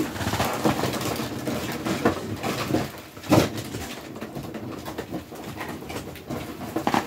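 Sealed trading-card packaging being handled: a steady crackly rustle with small clicks and taps, and one louder knock about three seconds in.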